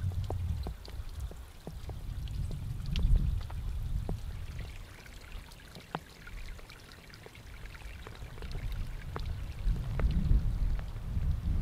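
Rainwater dripping off a wet rock face: scattered single drops falling and landing, over a low rumble that grows louder near the end.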